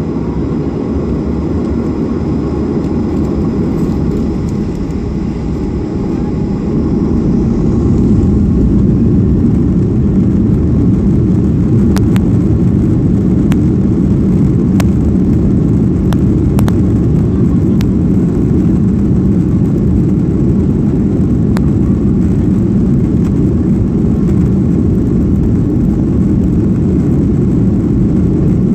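Boeing 737-800's two CFM56-7B26 turbofan engines heard from inside the cabin over the wing, spooling up to takeoff thrust. The deep roar swells about seven seconds in and then holds steady as the takeoff roll begins. A few sharp clicks come in the middle.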